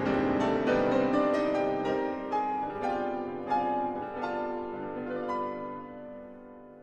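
Background piano music, a run of struck notes that gradually fades out.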